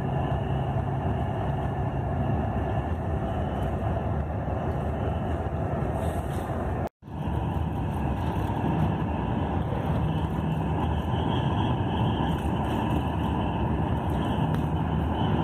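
Steady engine and road noise heard from inside a long-distance coach cruising on a highway. It breaks off for a moment about halfway through, then carries on the same.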